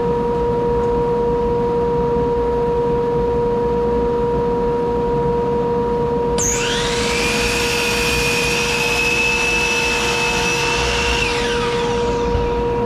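Shop dust collector running with a steady hum. About six seconds in an electric power saw starts with a rising whine, runs at speed for about five seconds while trimming a board, then winds down.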